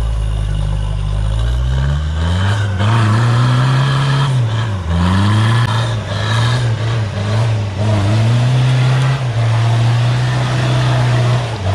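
Off-road 4x4's engine revving hard under load as it climbs a muddy slope. The revs rise about two seconds in, dip briefly three times, and are held high near the end.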